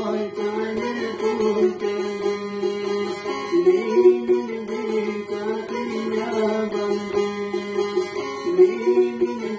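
Music: a long-necked folk lute plucked, playing a quick melody over a steady held low note.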